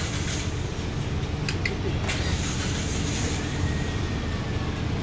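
Steady low rumble of street-stall background noise, with a few light clicks about one and a half to two seconds in.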